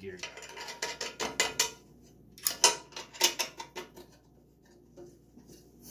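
Metal parts of a manual benchtop cookie depositor clinking and clicking as the gear guard is fitted back on and a thumb screw is worked. A quick run of sharp clicks fills the first couple of seconds, more come around the middle, and it goes quieter near the end.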